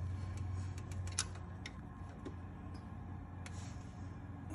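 Scattered light metallic clicks of a wrench and screwdriver on a valve-lash adjuster as its lock nut is tightened, over a steady low hum.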